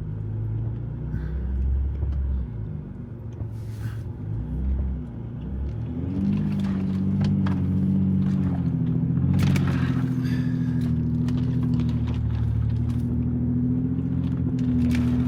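Jeep Gladiator's 3.0-litre diesel V6 working under load on a rocky climb, its revs rising about six seconds in and then holding steady, with a few short knocks.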